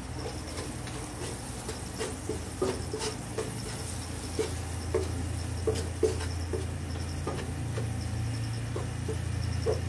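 A wooden spatula stirs frying onions and spices in a non-stick frying pan, making irregular knocks and scrapes against the pan over a steady low hum.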